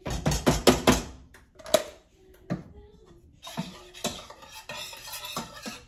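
A kitchen utensil clinking and knocking against cookware: a quick run of sharp taps in the first second, a couple of single knocks, then softer scraping near the end.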